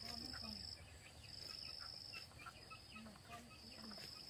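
A faint insect trilling in repeated high-pitched bursts, each about a second long, four times with short gaps between them.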